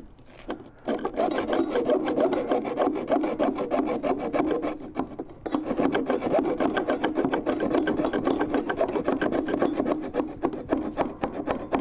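Hand hacksaw sawing in quick, short back-and-forth strokes in a cramped spot inside a mower deck, starting about a second in and pausing briefly about halfway before going on.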